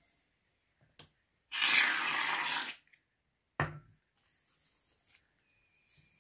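Aerosol hair product spraying in one even hiss of about a second, followed a second later by a short sharp click.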